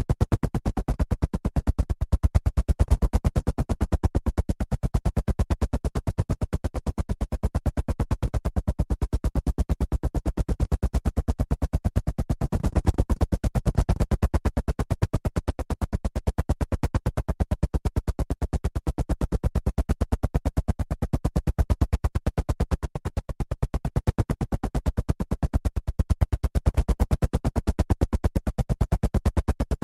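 Helicopter rotor chopping steadily: a fast, even train of blade thumps at a constant level, swelling slightly in the low end about halfway through.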